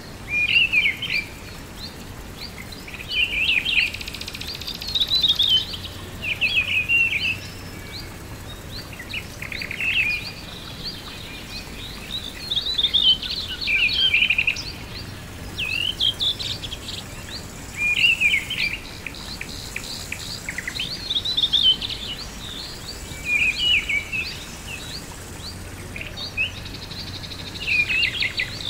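Songbirds singing: short phrases of quick, high chirps, each about a second long, repeating every couple of seconds over a faint steady hiss.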